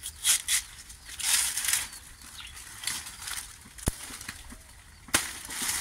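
Leafy frond rustling and tearing as its leaflets are stripped by hand: several short swishes, with one sharp snap a little before four seconds in.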